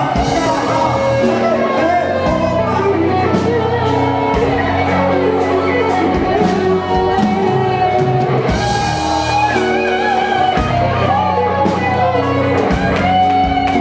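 Live worship music: a band with guitar and drums plays while voices sing along.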